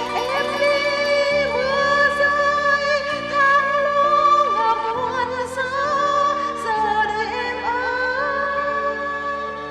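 A singer's voice holding long notes with vibrato over sustained accompaniment chords that change every second or two.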